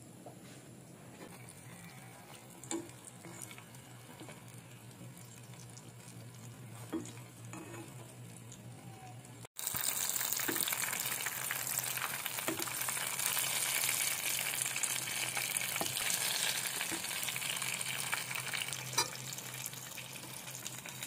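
Bell-pepper-filled pastries deep-frying in hot oil, sizzling loudly and steadily as a wooden spatula turns them, with a few light knocks. The sizzling starts abruptly about halfway through; before it there is only a quiet low hum with a few faint knocks.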